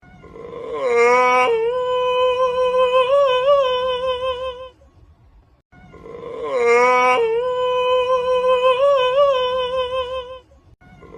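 A held, voice-like note that starts with a short glide and then keeps a steady pitch with a slight waver, lasting about four and a half seconds. It stops and then repeats identically about halfway through, as from a looped audio clip.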